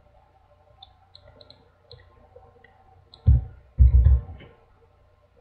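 Light computer mouse clicks, scattered sharp ticks a few at a time. About three seconds in, two low thumps come close together and are the loudest sounds.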